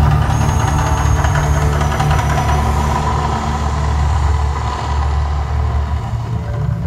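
Mirage volcano attraction erupting: a loud, steady deep rumble as gas fireballs burst from the top of the artificial volcano, easing slightly near the end.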